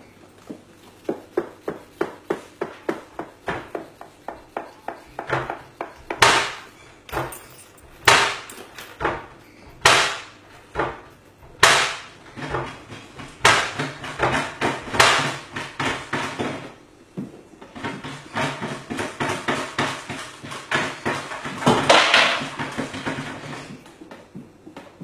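Wooden kitchen cabinet doors knocking and banging: a run of quick knocks, about three a second, then louder slams every couple of seconds and a close cluster of bangs near the end.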